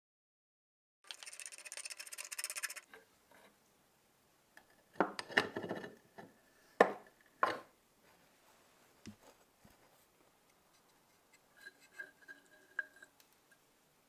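Parts of a rusty cast-iron and brass hand-cranked sugar grinder being handled and taken apart on a wooden workbench: a short scraping rasp, then several sharp knocks and scrapes of metal on wood about five to seven seconds in, and a few light metallic clinks near the end.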